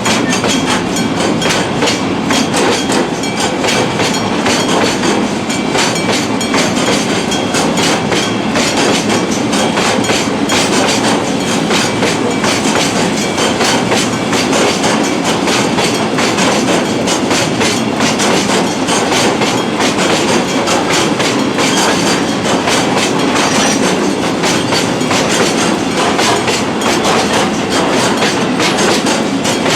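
A freight train of limestone hopper wagons rolling past, its wheels clattering steadily over the rail joints.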